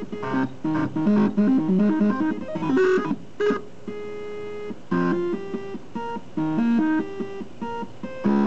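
Stepper motors playing a tune from MIDI: buzzing pitched notes in a quick melody over a changing bass line, with a chord of several notes held for about a second near the middle.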